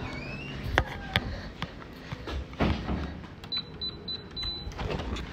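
A short rising squeak, then scattered knocks and handling noise. A little past halfway comes a quick run of five short, high electronic beeps, the last slightly longer.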